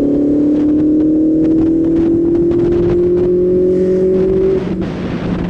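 Benelli 600i's inline-four engine running through a single aftermarket M4 silencer under way. The revs climb slowly and steadily, then about four and a half seconds in the note drops to a lower, quieter run.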